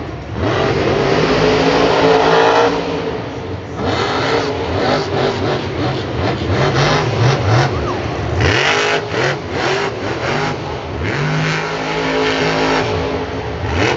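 Great Clips Mohawk Warrior monster truck's supercharged V8 revving hard in repeated surges, its pitch climbing and falling as the throttle is stabbed and released.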